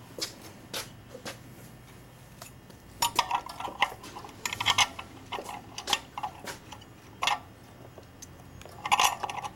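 Scattered light metallic clinks and clicks from engine parts being handled and fitted inside an aluminium bell housing over the flywheel.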